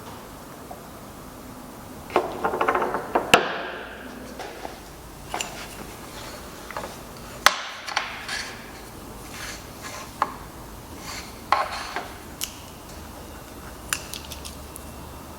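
Woodworking handling sounds: wooden parts and hand tools knocked and set down on a workbench. Scattered knocks and clicks, a quick rattle about two seconds in, and sharper knocks about three and a half and seven and a half seconds in.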